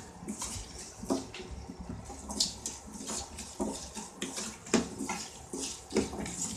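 Small onions (shallots) sizzling in oil in a kadai, with a spatula scraping and knocking against the pan in irregular strokes about once a second as they are stirred.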